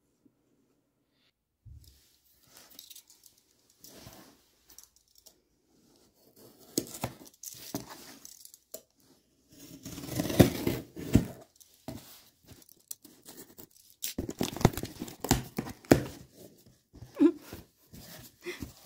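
Packing tape on a cardboard box being slit and torn open with a pointed tool, then the cardboard flaps pulled apart: scratchy tearing and rustling in bursts, loudest about ten seconds in and again around fifteen seconds.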